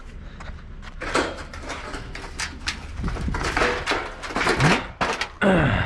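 Scrap metal being handled: irregular knocks, clanks and scraping over a steady low rumble, with a falling scraping tone near the end.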